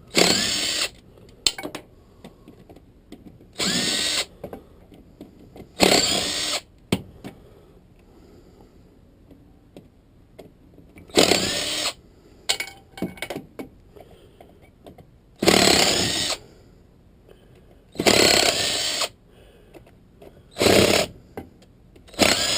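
Power drill-driver backing out transmission case bolts that are held with Loctite, running in about seven short bursts whose pitch rises and falls, with light clicks of bolts and metal being handled between the bursts.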